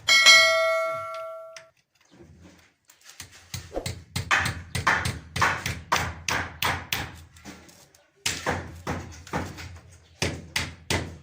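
A struck object rings with a clear metallic tone for about a second and a half. Then comes a long run of sharp knocks, two or three a second.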